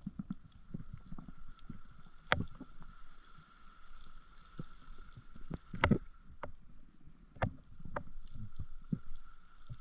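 Underwater sound picked up by a diver's camera: irregular muffled knocks and clicks over low water rumble, with a faint steady high tone. The loudest knocks come about two and a half, six and seven and a half seconds in.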